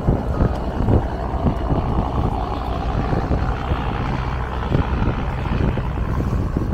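Tourist river boat's engine running steadily under way, with the rush of water and wind and frequent low thumps of wind on the microphone.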